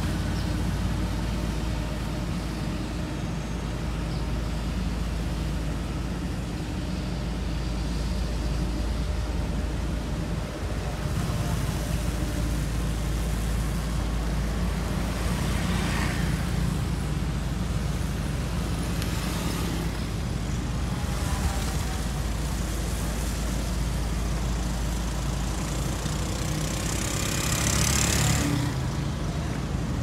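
Diesel engine of a pneumatic-tyred road roller running steadily while it compacts fresh asphalt. Passing traffic swells briefly about halfway through and again near the end.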